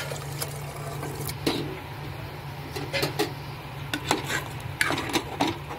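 Steel ladle knocking and scraping in a metal cooking pot as boiled mutton is tipped in and stirred through thick korma masala: irregular clinks over a steady low hum.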